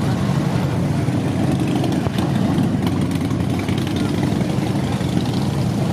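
Harley-Davidson V-twin touring motorcycles riding past one after another, their engines giving a steady low rumble.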